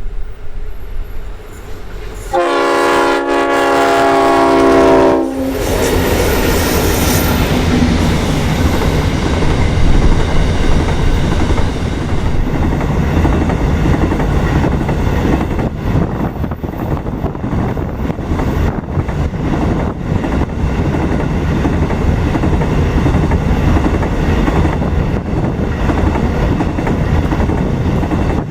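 EMD diesel locomotives on a freight train sound their horn for about three seconds and then pass close by with the engines running. Then come the wagons, their wheels clicking over the rail joints.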